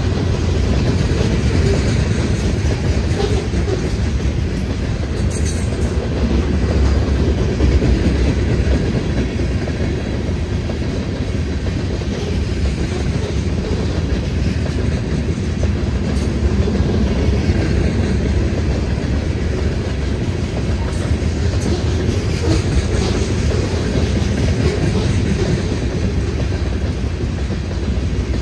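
Freight train rolling past: a steady, loud rumble of its cars' wheels on the rails.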